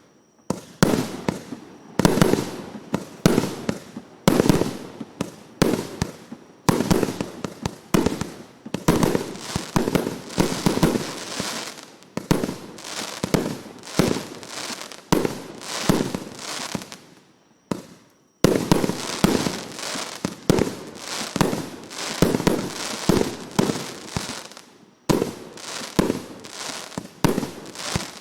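A 300-shot, 1.2-inch firework battery firing its shells in rapid succession, with several sharp bangs a second. There are brief pauses between volleys about 18 seconds in and again about 25 seconds in.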